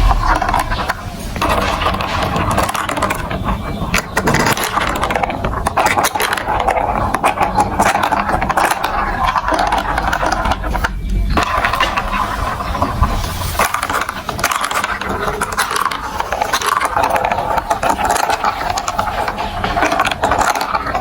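Marbles rolling and rattling steadily along a plastic building-block marble run, a dense stream of small clicks with a brief break a little past the middle.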